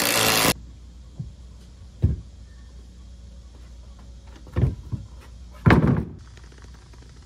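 Cordless impact driver hammering a deck screw into a 2x6 board, cutting off abruptly about half a second in. Then a few hollow wooden knocks as a heavy 2x6 frame is handled and set down on deck boards. The loudest comes about six seconds in.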